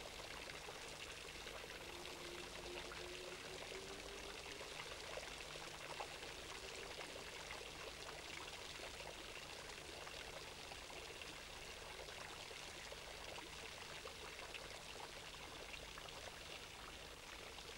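Faint, steady rushing hiss with no distinct events, broken only by one small tick about six seconds in.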